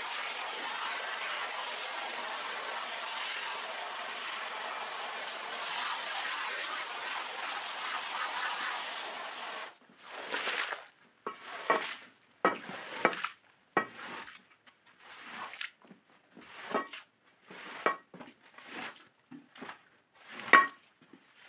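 Hose spray nozzle spraying water onto a soaked rug, a steady hiss that cuts off about ten seconds in. About ten strokes of an iron scraper follow, roughly one a second, squeezing water out of the wet rug pile. Some strokes carry a brief squeak.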